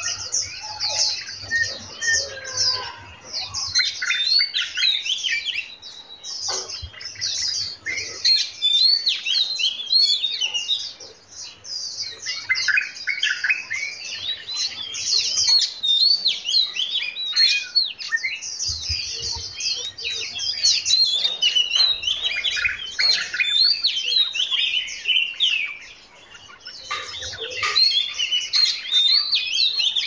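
Many songbirds of mixed kinds singing and chirping at once, a dense tangle of quick high notes and warbles. The chorus thins out briefly a few times, about six seconds in, near the middle and near the end, and then swells again.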